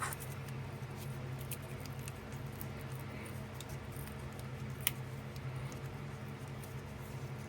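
Pocket knife point working a hole into a stick for a leg: faint scraping with scattered small clicks, one sharper click about five seconds in, over a steady low hum.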